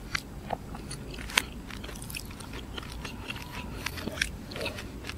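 A person chewing cooked mussel meat, with soft wet mouth clicks and scattered light taps; one sharper click about a second and a half in.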